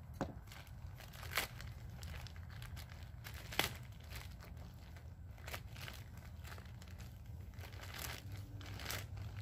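White plastic soil bag crinkling and tearing as it is pulled open by hand, with irregular sharp crackles of the plastic.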